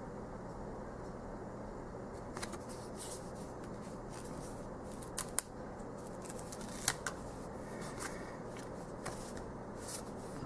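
Tarot cards being handled: a scattering of light clicks and slides as cards are drawn from the deck and laid down, the sharpest a little after five and seven seconds in, over a steady low hum.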